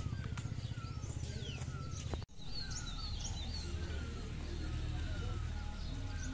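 Birds calling in outdoor ambience: short falling whistles repeat about twice a second, with higher chirps over a steady low rumble. The sound cuts out for an instant about two seconds in.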